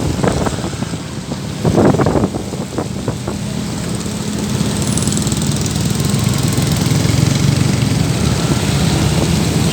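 A vehicle engine running steadily with a low hum, with a few sharp knocks in the first two seconds.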